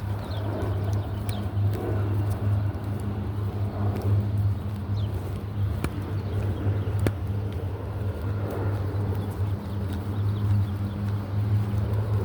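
Engine running at a steady low hum, with a few faint high chirps and a couple of sharp clicks over it.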